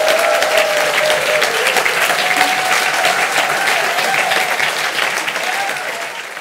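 Audience applauding at the end of a song, dense steady clapping that fades out near the end.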